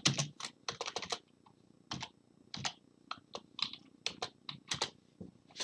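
Typing on a computer keyboard: short, irregular runs of keystrokes with brief pauses between them.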